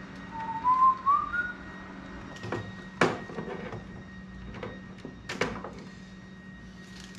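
A person whistling a short phrase of a few notes that step upward in pitch, followed by a few sharp clicks and knocks as parts are handled, over a steady low hum.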